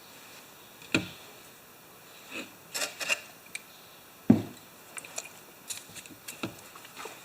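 Scattered clicks and knocks with short rubbing and scraping from hands working a starter rope and mower parts; the two sharpest knocks come about a second in and just past four seconds.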